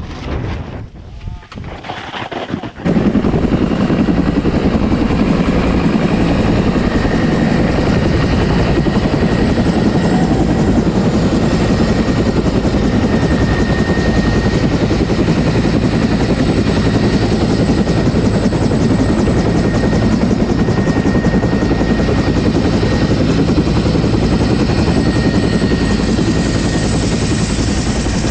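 Wind buffeting the microphone, then about three seconds in a loud helicopter takes over: a steady heavy rumble with a thin, constant turbine whine on top, running evenly.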